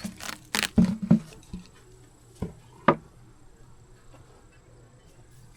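A handful of knocks and clunks, with a few sharp clicks, from beekeeping equipment being handled at an open hive. They come in the first three seconds, the loudest about one second and three seconds in, and then give way to a faint steady hum.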